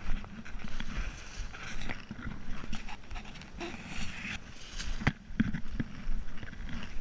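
Irregular knocks, rattles and rustling from moving fast along a dirt trail, with the camera jostled by the movement.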